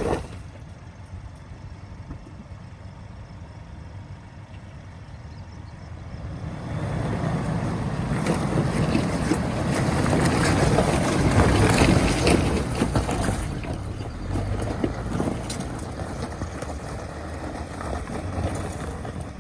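2019 Ford Ranger's 2.3L EcoBoost four-cylinder engine pulling the truck up a loose-rock slope, with rocks crunching and grinding under its off-road tyres. It grows much louder about six seconds in, with a tyre slipping and throwing dust midway, then eases off as the truck climbs away.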